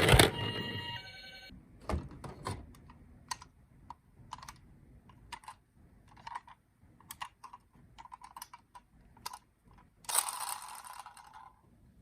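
A toy ambulance's electronic siren cuts off just after the start. Then come scattered light clicks and clatter of toy minicars being handled and rummaged through in a box, with a longer rustle about ten seconds in.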